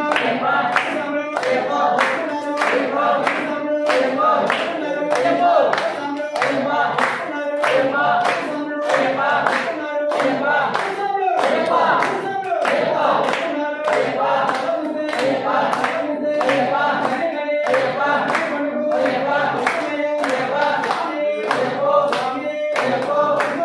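A group of men chanting a devotional song in unison, with steady hand clapping in time, about two claps a second.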